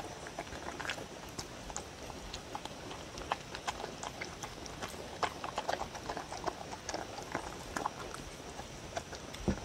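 A dog eating soft chopped fruit, vegetables, egg and meat from a wooden bowl: irregular wet chewing, smacking and clicking of mouth and nose in the bowl, busiest past the middle, with a dull thump near the end.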